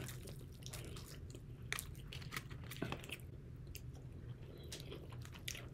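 Faint chewing and biting on fried chicken wings, with many small, scattered crunches and clicks of the mouth.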